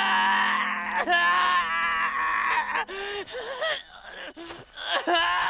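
A man crying out in pain from an injured leg: a long, wavering cry, then shorter groans and gasps.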